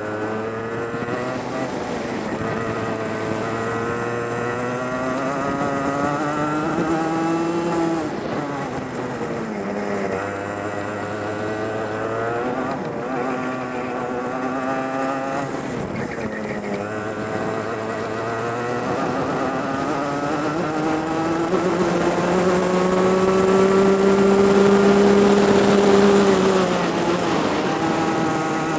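A racing kart's engine heard from on board. It revs up along each straight and drops off sharply into the corners, about half a dozen times. The longest and loudest climb comes near the end, on the straight.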